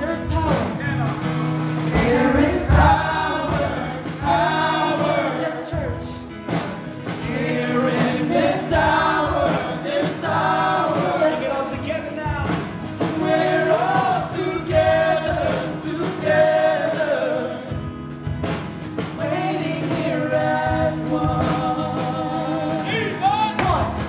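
Live worship band playing: a male lead singer with women's backing vocals, over acoustic guitar and drums.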